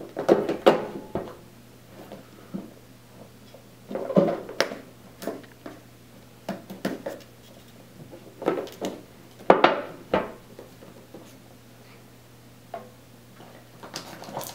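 Cardboard tablet packaging being handled: a box slid out of its sleeve and its lid lifted off, with irregular scrapes, rubs and light knocks coming in short bursts.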